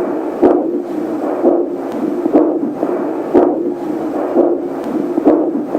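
Fetal doppler speaker playing the mother's abdominal artery pulse: a whooshing beat about once a second, in time with her own heartbeat rather than the faster fetal heart.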